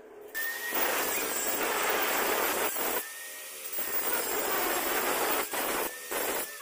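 Angle grinder with a thin cutting disc slicing through stainless steel tube, a steady grinding hiss. It eases off for under a second about three seconds in and breaks off briefly a few times near the end.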